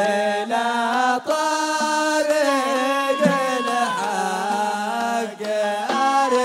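Hadrami zarbadi song: men's voices chanting a long-held, gliding melody, with a few sharp drum strokes.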